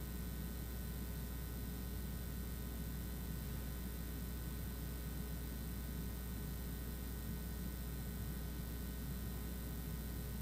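Steady low hum with a faint hiss, unchanging throughout; no other sound.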